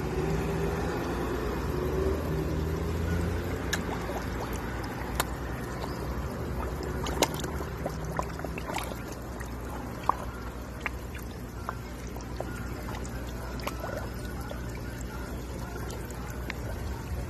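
Fish feeding at the water surface from a hand: a run of sharp splashes and gulping pops scattered through, over steady sloshing and trickling water. A low hum runs for the first few seconds.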